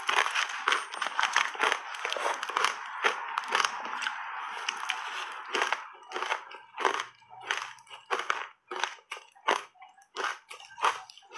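Close-miked crunching of frozen shaved ice dusted with matcha powder as it is bitten and chewed: a dense, continuous run of crunching for about the first half, then separate crunches about twice a second.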